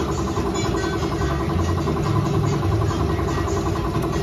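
Air compressor running steadily with a fast, even pulse, supplying air to a paint spray gun.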